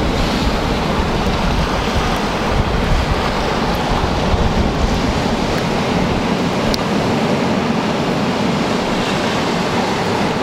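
Steady wash of sea surf with wind buffeting the microphone in low, gusty rumbles.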